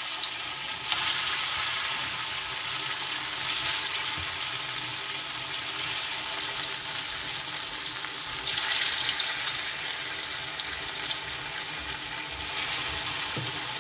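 Methi vadi slices deep-frying in hot oil in a steel kadhai, the oil sizzling steadily, growing louder for a couple of seconds past the middle.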